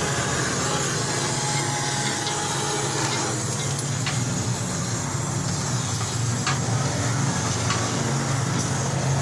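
Welding on a car's exhaust pipe by the silencer: a steady low hum with a hiss over it and a few faint clicks.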